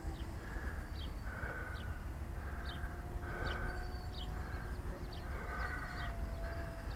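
Wind rumbling on the microphone, with a faint steady whine from the model plane's electric motors that drifts slightly in pitch. Short calls repeat about once or twice a second.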